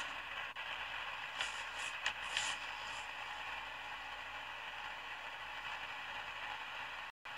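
Steady background hiss of room noise picked up by a phone microphone, with a few short rustles about one and a half to two and a half seconds in and a brief audio dropout near the end.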